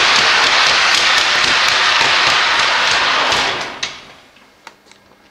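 Rubber-band-powered aerotrain model's propeller whirring as it runs down the guide-rail track, with scattered light knocks. The sound dies away about three and a half seconds in as the model reaches the end of the track, leaving only a few faint clicks.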